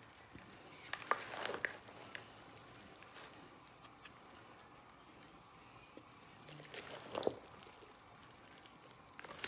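Faint wet squelching and scraping of a spatula stirring chopped pork sisig with mayonnaise in a glass bowl, in two short spells, about a second in and again about two-thirds through.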